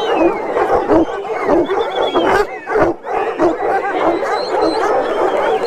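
A large group of farm dogs barking and howling together, many rising and falling howls overlapping with sharp barks and yelps.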